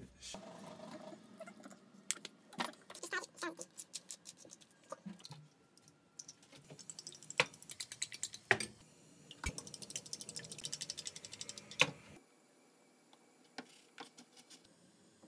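Fork beating eggs in a bowl: quick clicks of the metal tines against the bowl. Scattered clinks and handling noises come first, then a dense run of rapid clicking in the middle that stops abruptly, leaving only a few faint clicks.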